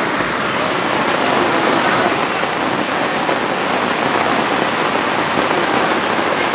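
Heavy typhoon rain together with fast-flowing floodwater, heard as a steady, even rush of noise that does not let up.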